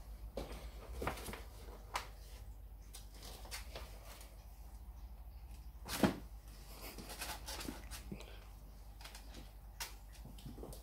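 Scattered light knocks and scrapes from Miniature Schnauzer puppies moving in a plastic dog bed and batting at a hanging cat toy, with one louder knock about six seconds in.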